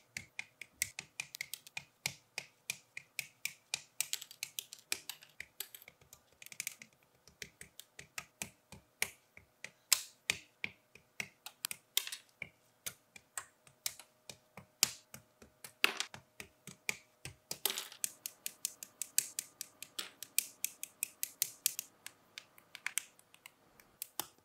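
Plastic model kit parts being clipped off their sprues and snapped together: a long, irregular run of sharp plastic clicks and snips, several a second.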